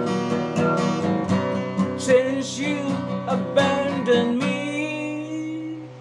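Acoustic guitar strummed in a steady rhythm, closing on a final chord that rings for over a second and then fades out near the end.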